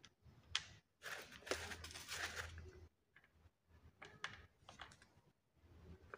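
Faint clicks and rustling as the black plastic rear handle and cable of a rotary hammer are handled and seated by hand on cardboard, with a longer rustle about a second in and a few more clicks later on.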